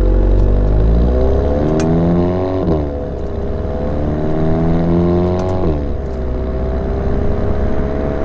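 Volkswagen Mk7 Golf GTI's turbo four-cylinder, Stage 2 with a catted downpipe, accelerating: engine pitch rises, drops at an upshift about three seconds in, rises again and drops at a second upshift near six seconds, then holds steady.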